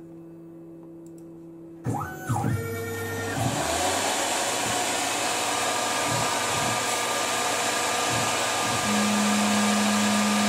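Tormach RapidTurn CNC lathe starting a program run. After a low hum, the spindle spins up about two seconds in with a whine that rises and falls, then runs on as a steady rushing noise with several steady tones in it. About nine seconds in, a steadier, louder tone joins as the first tool starts facing the bar stock.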